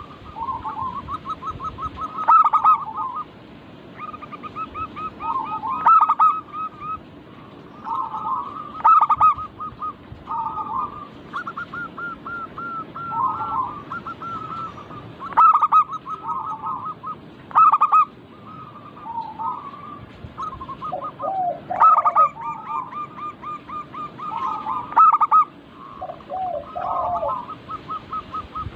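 Several zebra doves (perkutut) cooing in overlapping phrases. Quick runs of short notes lead into loud accented coos, which recur every two to three seconds.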